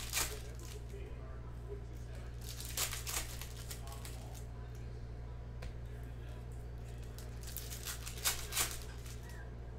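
Trading card pack wrappers being torn open and crinkled in a few short bursts, over a steady low hum.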